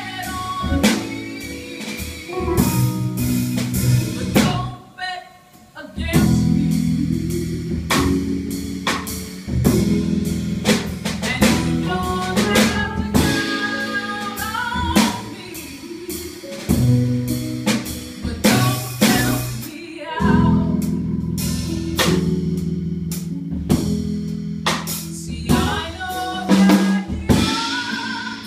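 Woman singing a slow jazz song with a small live band: keyboard, upright bass and drum kit. The band thins out to a brief near-pause about five seconds in, then comes back in full.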